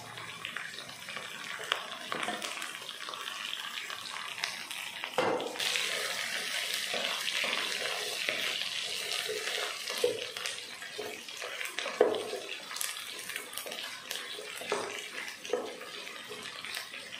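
Chopped vegetables sizzling in hot oil in a pot while a wooden spatula stirs them. The hiss grows louder about five seconds in, with a few knocks of the spatula against the pot.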